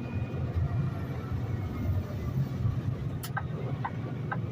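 Steady low rumble of a semi truck's engine and road noise heard inside the cab, with a few short ticks starting about three seconds in.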